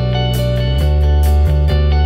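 Background music: a guitar-led instrumental track with a bass line and a steady beat.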